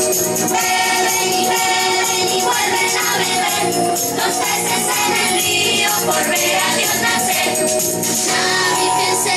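Music: voices singing together over a steady accompaniment, with jingling tambourine-like percussion.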